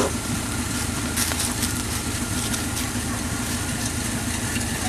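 A vehicle engine idling steadily, with a couple of light knocks near the start and about a second in.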